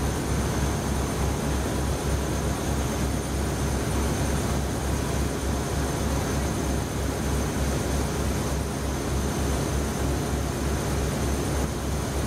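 Bulkhead sand-carrier boat's diesel engine running steadily with an even, rhythmic low throb, under a constant hiss.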